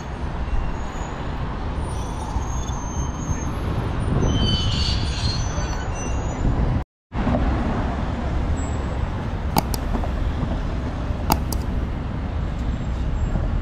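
Road traffic passing: a steady rumble of engines and tyres, with a brief high squeal about four seconds in. The sound drops out to silence for a moment about seven seconds in, and a few sharp clicks come later.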